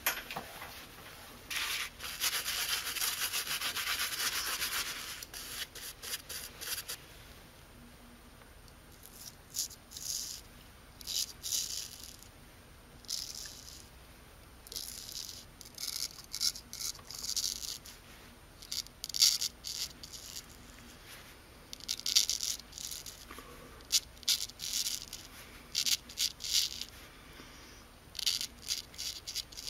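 Straight razor scraping through lather and stubble in short strokes, each a brief rasping scratch, coming in clusters of several strokes with short pauses between. About two seconds in there is a steadier rasping that lasts a few seconds.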